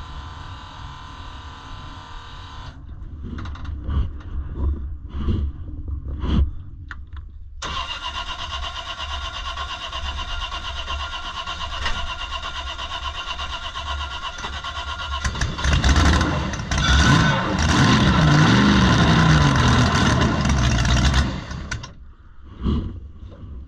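Supercharged drag boat engine being cranked on its starter while fuel is squirted into the blower to prime it. The cranking runs steadily, grows louder with a wavering pitch about halfway through, and stops shortly before the end.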